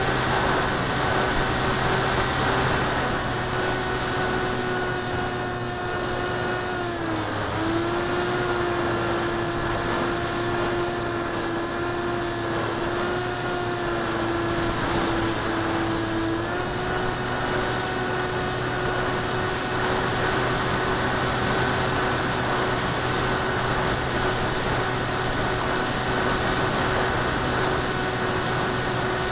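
ParkZone Icon A5 RC plane's electric motor and propeller whining steadily in flight, close up from the onboard camera, with rushing airflow noise. About seven seconds in the pitch dips briefly and then holds a little lower, stepping back up about sixteen seconds in as the throttle changes.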